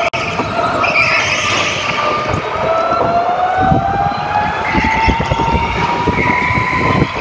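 Indoor racing go-kart at speed, heard from on board: its motor's whine climbs steadily in pitch as it accelerates. Short tyre squeals come as it slides through the corners, about a second in and again near the end.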